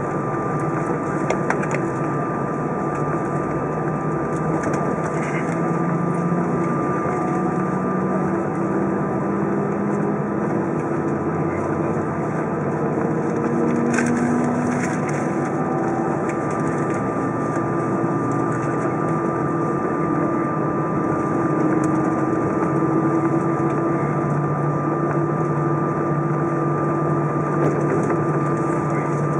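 Cabin noise of an Airbus A320 taxiing, heard inside the cabin: a steady engine hum whose tones drift slowly in pitch, over a steady high whine and a general rushing noise. There is a faint click about 14 seconds in.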